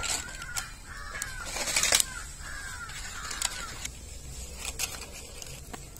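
Crows cawing, a run of short calls in the first few seconds, with a few sharp clicks scattered through.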